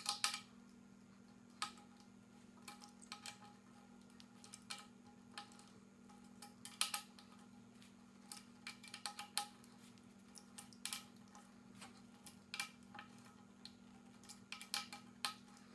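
Light, irregular metallic clicks and clinks of a stunt scooter's bar clamp, bolts and handlebar being handled and fitted, several a second at times with pauses between, as the clamp is installed.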